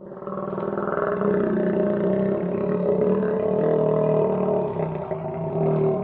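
Crocodile giving a long, steady, rough growl that begins abruptly.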